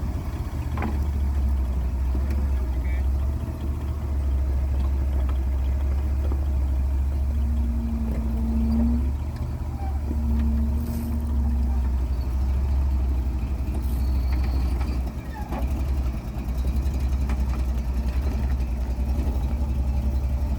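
Off-road vehicle engine running at low speed, a steady low drone with small dips in level. Twice around the middle a short, steady whine sounds over it.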